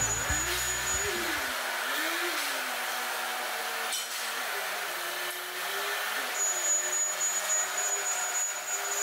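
Heavy Hyundai forklift's engine running as it drives across the floor, its pitch rising and falling, over a steady factory hum.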